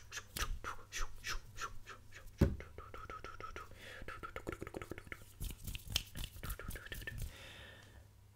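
Fast, close whispering into a microphone, with crisp mouth and consonant clicks coming about six a second, and a single loud thump about two and a half seconds in.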